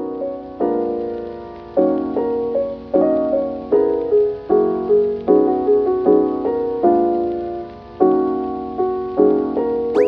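Background piano music: gentle chords and melody notes struck about once a second, each fading before the next.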